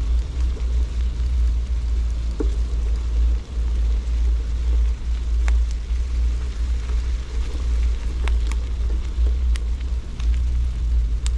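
Steady low rumble of wind and movement buffeting the microphone of a camera carried on a run, with a few faint clicks.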